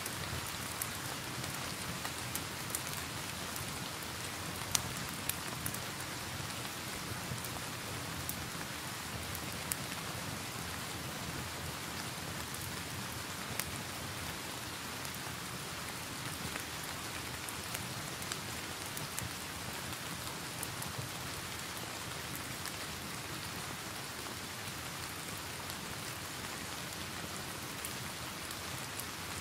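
Steady rain hiss mixed with the crackle of a log fire in a fireplace: scattered sharp pops and snaps over the rain, more of them in the first half.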